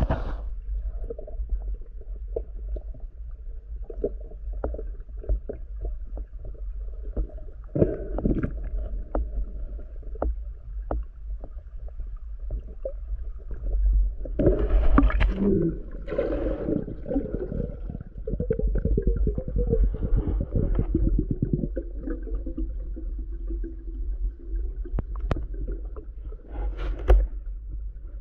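Underwater sound from a diver's camera: a steady low water rumble with scattered sharp clicks. Louder stretches of water noise come about eight seconds in, through the middle, and again near the end.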